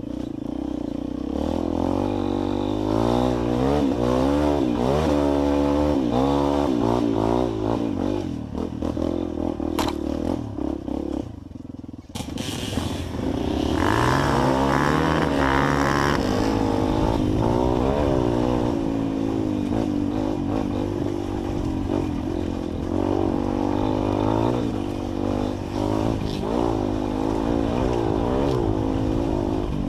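Trail motorcycle engine running and revving over rough ground, its pitch rising and falling again and again, with clattering and scraping. The sound drops briefly about twelve seconds in, then picks up again.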